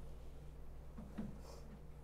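Quiet room tone with a steady low hum and a faint short sound about a second in.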